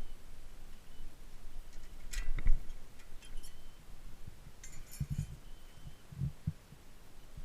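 Scattered metallic clinks and knocks of tools and brake parts being handled, loudest about two seconds in, with a short clatter and a few dull thumps around five to six seconds in.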